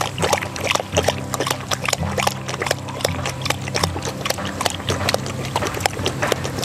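Black Labrador lapping water poured from a plastic bottle into its mouth: a quick, irregular run of wet tongue clicks, about three or four a second.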